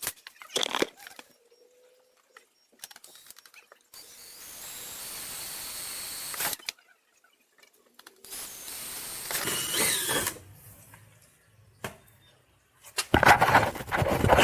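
A power drill boring pilot holes into the back of a car's bumper cover, in two runs of a few seconds each; the second run has a faint rising whine. A burst of loud handling clatter comes near the end.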